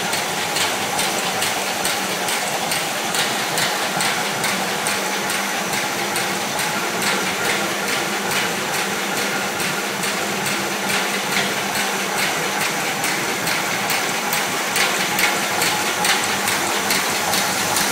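Circular metal-cloth knitting machine running, with a steady, even mechanical clatter of rapid repeating clicks.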